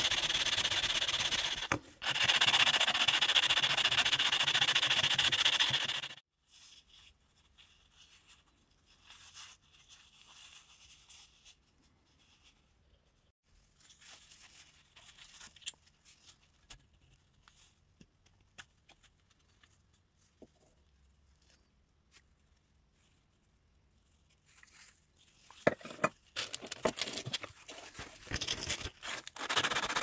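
A brass mini Zippo lighter case is rubbed by hand on sandpaper, a steady rasping scrape with a short break about two seconds in. Then a long quiet stretch with faint clicks and taps while the lighter is handled. The sanding resumes near the end in uneven strokes.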